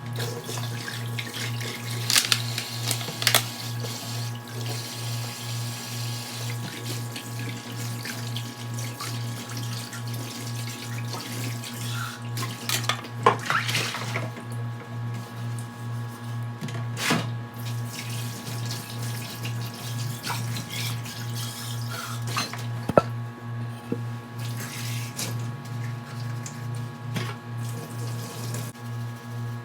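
Tap water running into a sink, with a few sharp clinks and clatters of dishes, over a steady pulsing low hum.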